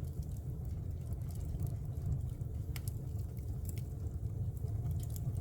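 Wood fire burning in a fireplace: a steady low rumble of the flames with scattered sharp crackles and pops from the burning wood.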